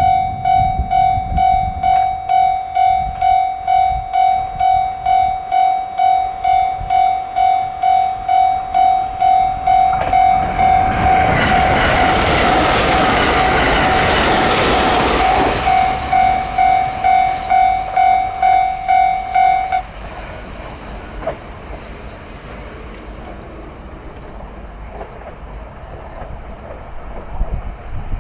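Railway level-crossing alarm ringing a pulsing electronic tone about twice a second while a train passes, its rumble swelling and fading over about six seconds midway. The alarm cuts off suddenly about twenty seconds in, the sign that the train has cleared and the barriers are lifting.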